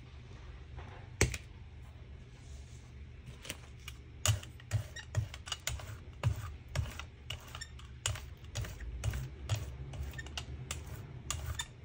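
Rubber brayer rolling paint out across a gel printing plate: a single click about a second in, then from a few seconds in a run of irregular, quick clicks and taps as the roller goes back and forth.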